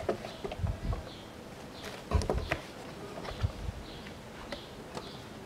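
Hands handling a car's lowered plastic glovebox and its contents: scattered clicks and knocks with a few dull thumps, the strongest about two seconds in.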